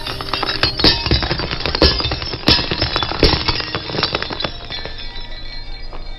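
Glass light bulbs bursting and their glass crunching under a rolling car tyre on asphalt: a rapid run of sharp cracks and tinkling, with several louder pops, that dies away about four and a half seconds in.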